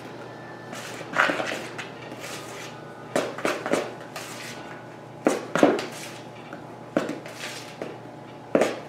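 A spoon stirring thick beer bread batter in a mixing bowl: irregular scrapes and knocks of the spoon against the bowl, roughly one every second or two.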